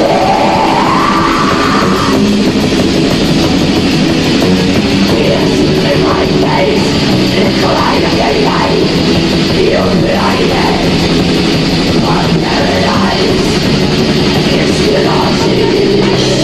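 A heavy metal band playing live: distorted electric guitars, bass and fast drumming, all at a steady loud level.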